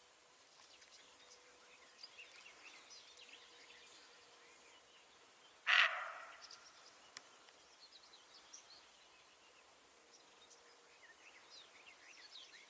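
A deer gives one short, loud call about halfway through, over faint birds chirping in the background.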